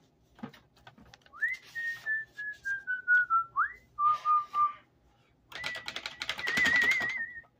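A person whistling a short tune: a slide up into a slowly falling run of notes, a lower held note, then a long high note that ends in a warble.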